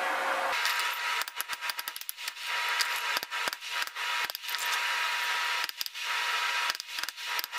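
Quick, irregular taps and clicks of a hammer working a small piece of steel, with stretches of steady hiss between the runs of taps.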